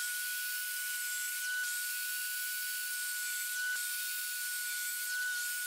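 Bosch sliding mitre saw running with a steady high whine as it is brought down through a wooden board.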